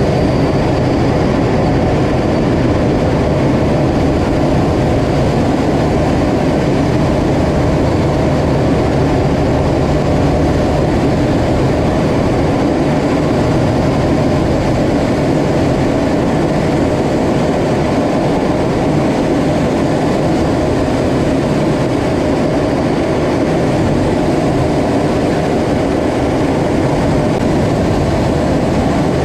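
Steady jet engine and airflow noise heard inside a fighter jet's cockpit in flight: a loud, unbroken low rumble that holds a constant level.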